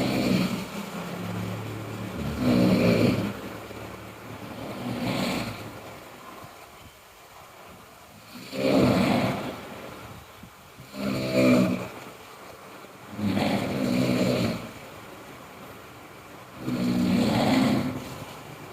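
A sleeping person snoring loudly: about seven deep, rasping snores, one every two and a half to three seconds, with quieter breathing between them.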